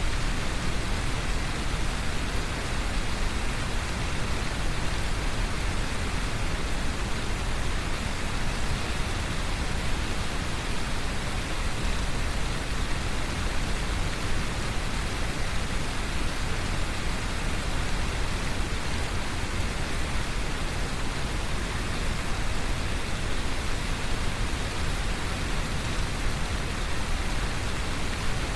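Brown noise mixed with heavy rain: a steady, even rushing hiss with a deep low rumble underneath.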